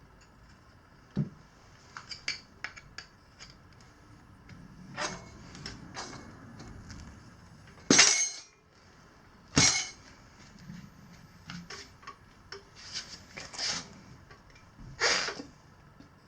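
Metal tire levers clinking and scraping against a motorcycle wheel rim as a stiff knobby front tire is worked onto it, in scattered clacks with several louder scraping strokes, the loudest about eight seconds in.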